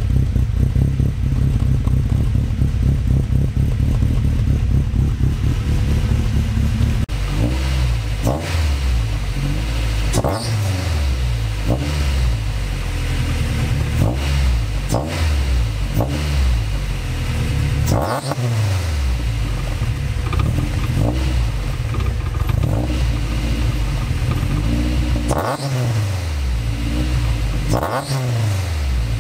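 Honda Civic's B20 VTEC four-cylinder idling through a freshly built 2.5-inch exhaust with a Turbo Works muffler. From about seven seconds in it is revved again and again, each rev climbing and then falling back to idle.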